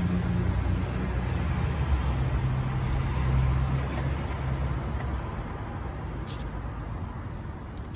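A motor vehicle's engine running, a low steady hum that fades over the second half, with a few faint light clicks.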